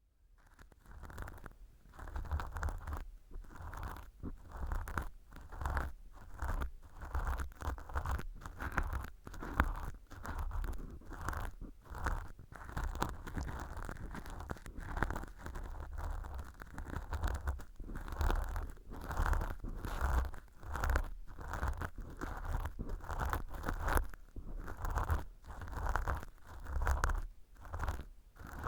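Earpick scratching in a mock ear canal of fluffy velcro packed with imitation dry earwax: repeated crackly scraping strokes, a bit over one a second.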